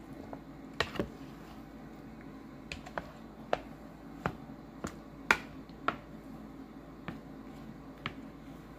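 Wooden spoon knocking and scraping against a bowl while turning raw chicken pieces in a wet marinade: about a dozen sharp clicks at irregular spacing, the loudest a little past halfway.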